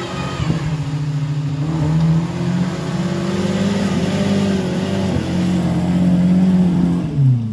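Small Suzuki 4x4's engine revving hard and held at high revs under heavy load as it climbs a steep mud slope, the pitch wavering as it works. About seven seconds in there is a brief loud surge, then the revs drop sharply.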